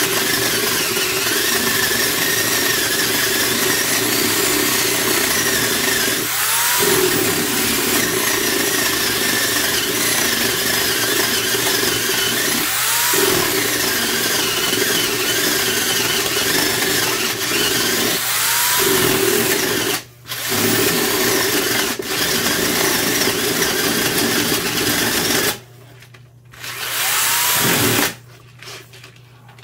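Ryobi D43 corded drill with a planetary gearbox boring into a wooden block with a dull 1½-inch spade bit under heavy load, the motor and gears running steadily as the bit cuts. It stops briefly about twenty seconds in and again a few seconds before the end, then cuts out for good near the end as the circuit breaker trips right at the breakthrough.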